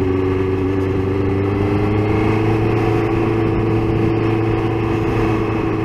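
Suzuki GSX-R750 inline-four engine running under way, its note rising a little and then holding steady, with wind noise over the microphone.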